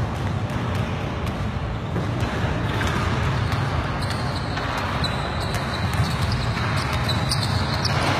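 Basketballs bouncing on an indoor court floor: repeated short thuds scattered through a steady din of players moving about the gym.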